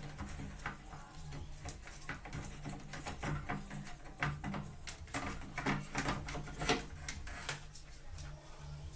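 Irregular small crackles and clicks of insulating tape being unrolled and wrapped around wire connections by hand.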